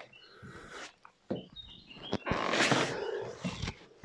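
A long, breathy exhale about two seconds in, lasting over a second, with a few faint high bird chirps before it.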